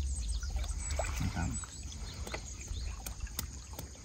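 Shallow river water flowing and lapping, under a low rumble of wind on the microphone that eases off over the first seconds. A few light clicks come in the second half.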